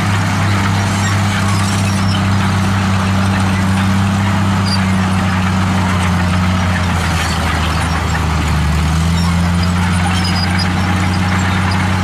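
Komatsu D63E crawler bulldozer's diesel engine running steadily under load as the dozer pushes dirt and rock with its blade; its note shifts slightly about nine seconds in.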